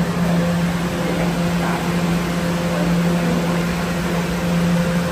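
R211A subway car standing at the platform with its doors open, its onboard equipment giving off a steady low hum with a fainter, higher steady tone above it.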